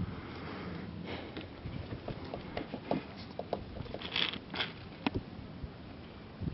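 Handling noise from a handheld camera as it is panned: scattered light clicks and short grainy rubbing scrapes, with a louder scrape about four seconds in.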